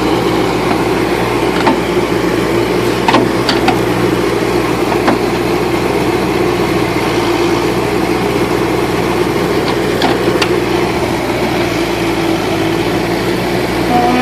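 Backhoe engine running steadily, with a few short sharp knocks and clanks scattered through.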